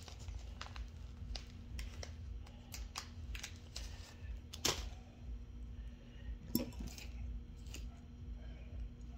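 Scattered light clicks and rustles of hands handling small fishing tackle, a plastic tackle packet and line, with two sharper clicks about halfway through. A steady low hum runs underneath.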